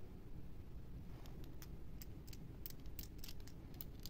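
Light, scattered clicks and taps of hard-plastic blank fishing lures being handled, over a faint steady hum.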